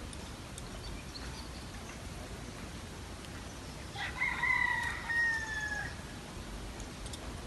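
A rooster crowing once, about four seconds in: a single call of about two seconds that sags slightly in pitch at the end.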